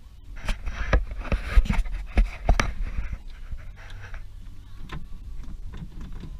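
A cluster of sharp knocks and clicks with rustling, busiest in the first three seconds and sparser after, over a low rumble.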